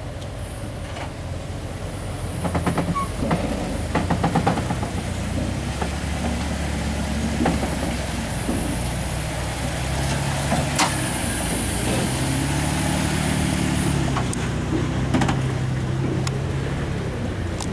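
Off-road vehicle's engine running and revving up and down at crawling speed over rocks, with scattered knocks and clunks, a cluster of them a few seconds in.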